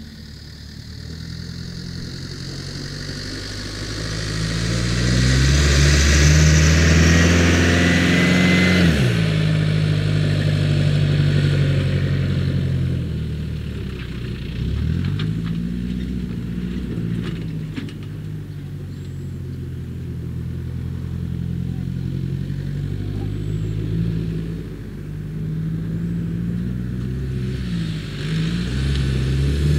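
Growler M1161 military vehicle driving past: its engine note climbs and grows louder as it approaches, drops sharply as it passes about nine seconds in, then runs on steadily with some rises and falls in revs as it drives away and turns back.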